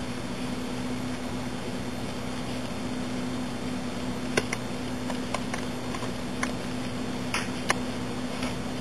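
Steady low background hum, with a few faint clicks of double-pointed knitting needles knocking together as stitches are worked, two of them close together near the end.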